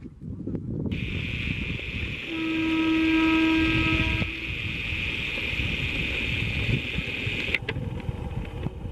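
Electric multiple unit local train sounding its horn in one steady blast of about two seconds, a couple of seconds in, over the low rumble of the approaching train and a steady high-pitched hiss.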